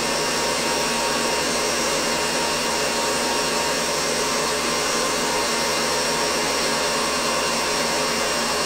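Stand mixer running steadily at high speed, its whisk beating agar-syrup marshmallow mass in a metal bowl: the whipping stage of making zefir.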